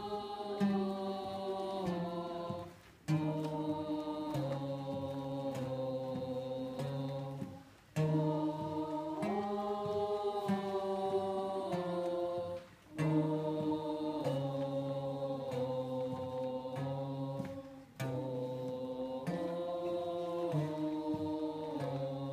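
Amateur choir singing on a sustained 'oh' vowel, several voices holding chords in long notes. The phrases last about five seconds each, with a short breath gap between them.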